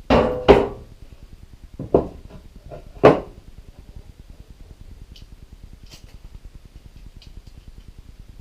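Pieces of wood being set down and knocked against a wooden table saw sled: two quick thuds at the start, single knocks about two and three seconds in, then a few faint clicks.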